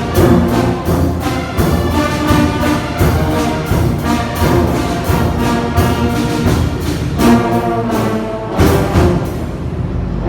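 Brass band playing an instrumental arrangement, with sustained brass chords and melody over regular drum beats. It eases off briefly near the end.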